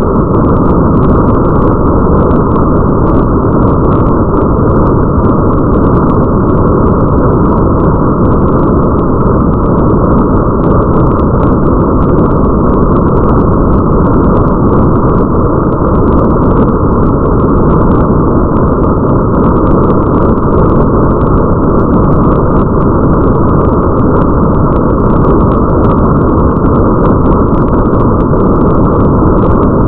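Rain ambience: a steady, dense, muffled rumble of rain noise, with faint scattered patter ticks above it.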